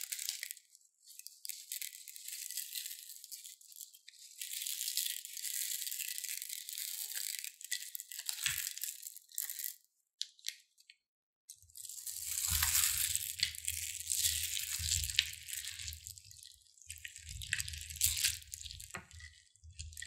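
Small plastic beads rattling in a plastic piping bag as they are squeezed and poured into a glass bowl of slime, in long stretches with a short pause about halfway. After the pause a low rumble joins the rattling.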